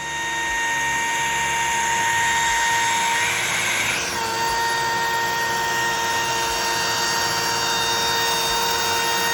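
The router spindle of a LongMill MK2 CNC running with a steady high whine as it surfaces a wood blank flat. The whine builds up over the first half second and dips slightly in pitch about four seconds in.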